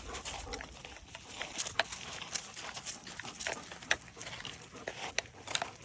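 Dogs and a person on a walk: irregular light scuffs and clicks of footsteps and paws.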